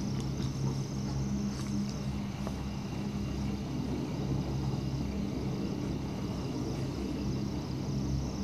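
Steady low hum and rumble inside a Hakone Ropeway gondola cabin as it travels along the cable.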